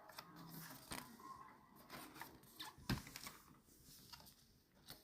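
Near silence with faint paper rustles from an album's contents being handled, and one soft tap just before three seconds in.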